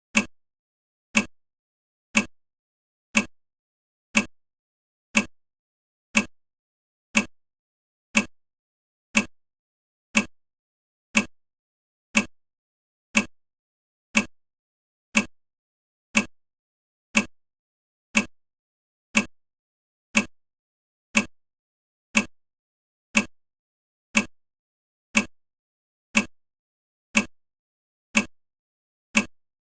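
Countdown timer ticking like a clock, one sharp tick every second, each fading quickly, in a perfectly even rhythm.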